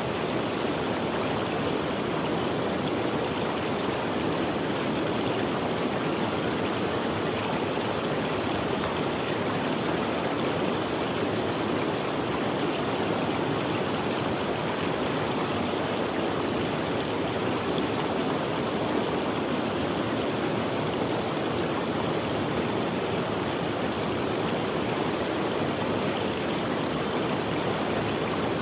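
Running water flowing steadily: an even, unbroken rushing, fullest in the low-middle range, with no single splashes standing out.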